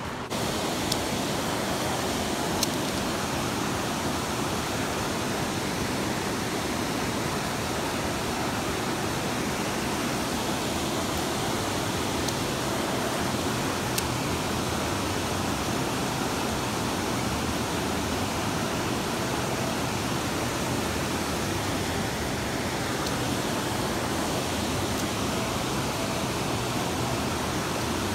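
Upland river running fast over rocks: a steady rush of flowing water, with a few faint ticks.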